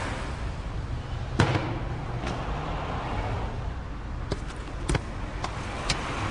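A football thumping against a player's feet and body as it is controlled and juggled: one sharp hit about a second and a half in, then several lighter touches later on, over a low steady hum.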